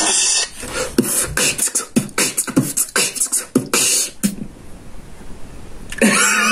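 A person imitating a sound effect with the mouth: a rapid, irregular run of clicks, pops and short breathy bursts lasting a few seconds, then a quieter stretch. A loud hissing sound cuts off about half a second in.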